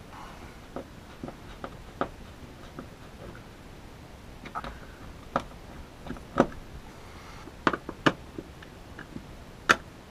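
Scattered small clicks and taps from hands handling a wire and a small plastic receiver housing, irregularly spaced and more frequent in the second half, with the sharpest click near the end.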